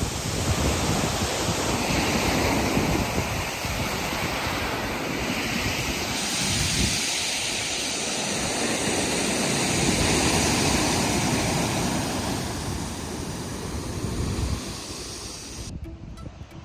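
Sea surf breaking over rocks and washing up a pebble beach, a continuous loud rush of water, with wind buffeting the microphone. Near the end the surf drops away, leaving lighter wind.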